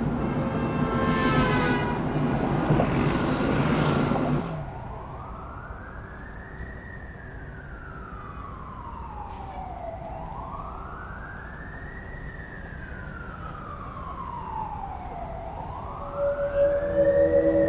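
A loud vehicle rumbles for the first four seconds or so, then an emergency-vehicle siren wails slowly, rising and falling about once every five seconds. Steady low tones join it near the end.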